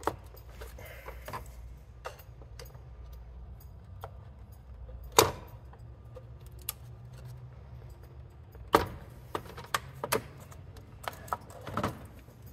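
Scattered sharp clicks and knocks of hands and tools working loose coolant hoses and plastic fittings around a car's coolant reservoir in the engine bay. The loudest knock comes about five seconds in and a quick cluster follows near the end, over a low steady hum.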